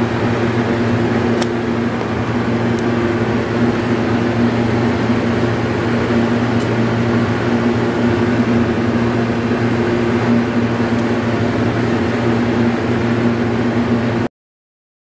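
A steady mechanical hum with a few faint ticks, cutting off suddenly near the end.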